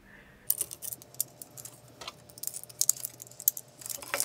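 Irregular light clicks and small rattles of small screws and parts being handled while fitting parts to a 3D printer's extruder carriage.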